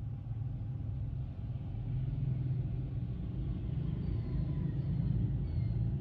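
Motor scooters riding past close by, their engine rumble swelling as they approach and peaking as they pass, heard from inside a car. From about four seconds in, a short high chirp repeats roughly twice a second.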